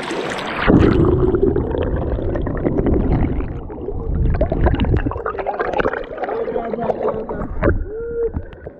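Rushing, gurgling water of a fast mountain stream heard with the microphone dunked underwater. The sound turns dull and muffled about a second in, with churning bubbling and a few muffled tones.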